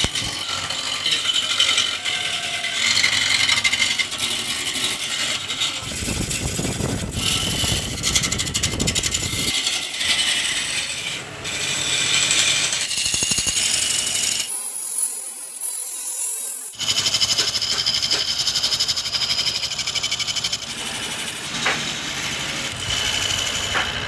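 Woodworking tool sounds on wood, rattling and scraping, in short segments that change abruptly every few seconds.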